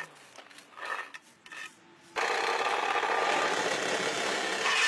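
A few short scrapes, then about two seconds in a loud, steady rasping noise of tool work starts suddenly and keeps going.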